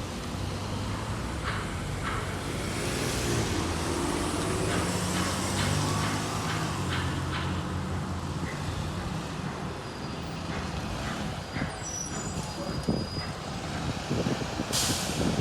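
Diesel-electric hybrid city bus running past in traffic, its engine note steady, with a short air-brake hiss near the end.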